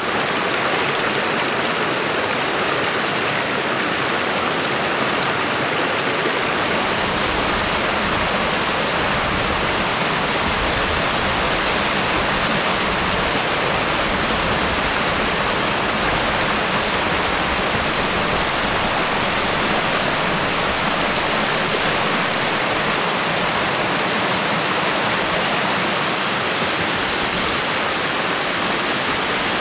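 A stream's water rushing steadily and loudly. About two-thirds of the way through, a short run of quick, high, rising chirps sounds over it for a few seconds.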